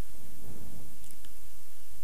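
Microphone and PA system hum and hiss in a pause between recited phrases, with a faint breath about half a second in and a single soft click a little past one second.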